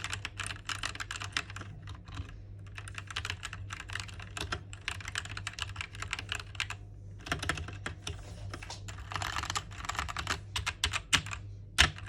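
Fast typing on a GK61 60% mechanical keyboard: rapid runs of key clatter with brief pauses, and one much louder keystroke near the end.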